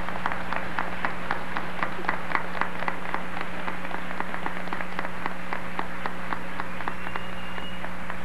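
Audience applauding, with distinct claps about four a second that die away about two-thirds of the way through. A steady electrical hum runs underneath.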